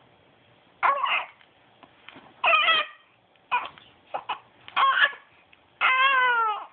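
Young infant vocalizing in about five short, whiny, high-pitched sounds, fussing on the verge of crying. The last sound, near the end, is the longest and wavers in pitch.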